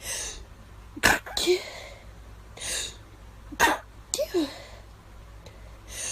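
Two sharp human sneezes, about a second in and again about two and a half seconds later, each preceded by a breathy intake and followed by a short voiced sound.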